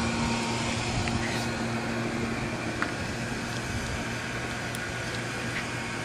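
Car driving slowly along a street: steady engine and road noise with a low hum, easing off slightly.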